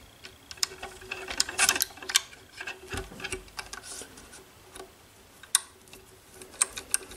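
Irregular small clicks and light taps of a hex driver and small metal and plastic model-helicopter parts being handled, as a ball-link screw is threaded through the anti-rotation bracket into the swashplate.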